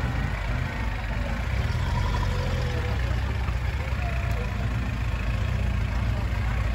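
Land Rover 4x4 engine running, a steady low drone with no revving.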